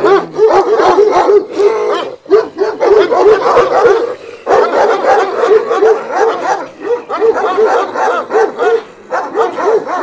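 Dog barking over and over in quick, yapping barks, about four a second, with a few short breaks.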